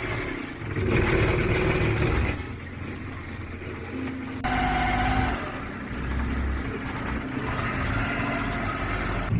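A motor engine running, with the sound changing abruptly about two and a half and four and a half seconds in.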